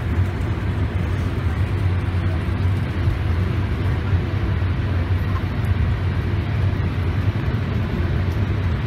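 Steady low rumble inside the cabin of a Boeing 787 taxiing onto the runway, its engines and rolling wheels heard through the fuselage with no change in level.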